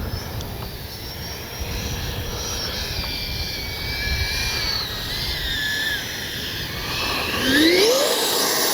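Electric ducted fan of a Freewing 70mm BAE Hawk T1 RC jet whining in flight, its pitch drifting with the throttle, then climbing steeply about seven seconds in as the throttle is pushed up. Wind buffets the microphone.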